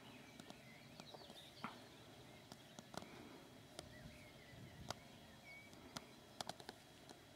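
Near-quiet outdoor ambience: faint, distant birdsong with short chirps, and a scattered series of sharp clicks and ticks, several in quick succession near the end.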